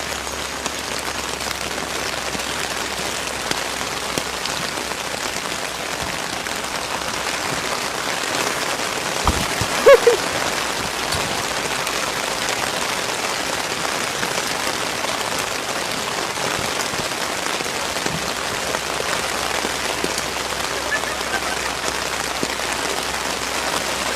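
Steady rain falling. About nine seconds in there is a brief low thump, followed by a short pitched sound.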